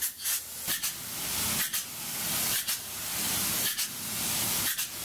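Polyurea spray gun hissing as it sprays the lining on in short passes, the spray cutting out briefly and starting again roughly once a second.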